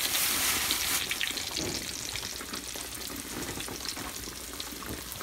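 Croaker fillet frying in hot grease in a skillet: a loud burst of sizzling for about the first second as the fish goes in, then a steadier sizzle with small pops.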